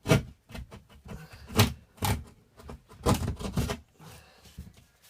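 Hand drywall jab saw cutting through sheetrock in short, uneven push-pull strokes, a rasping scrape about twice a second with brief pauses.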